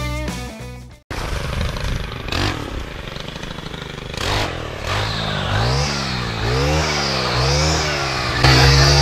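Stihl brushcutter with a saw blade running and cutting brush, its engine revving up and down over and over, roughly once a second. Music fades out at the start and comes back in near the end.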